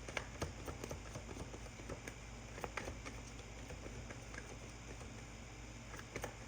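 Tarot cards being handled: faint, scattered light taps and clicks, a few a second, with a couple of sharper clicks near the start and one around the middle.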